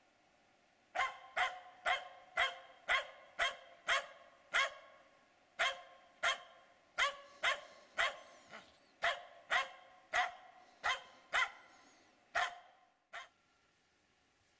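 Finnish Spitz barking in a rapid, steady string, about two sharp barks a second, head raised toward a tree. This is bark-pointing: the hunting dog's signal that it has treed game. The barks start about a second in and stop near the end.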